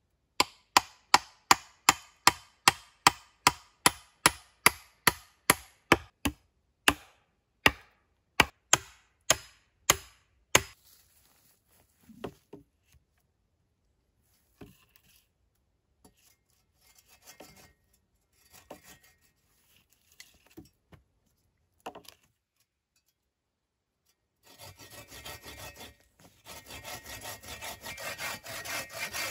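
Hand tools working wood: about twenty-five sharp, evenly spaced blows on wood, at first between two and three a second and then slowing and stopping about ten seconds in, followed by scattered small knocks. Near the end, a hand saw starts cutting wood with quick back-and-forth strokes.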